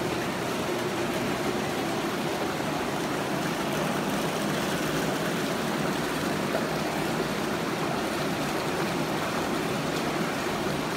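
Aquarium drain water pouring from PVC pipes into filter socks and down into a sump, a steady rushing splash.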